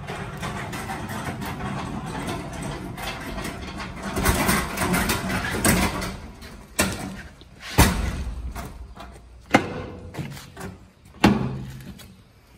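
A loaded U-boat stocking cart rolling across a trailer floor and a metal dock plate, its wheels rumbling steadily. In the second half come four sharp metallic bangs as the cart jolts over the plate.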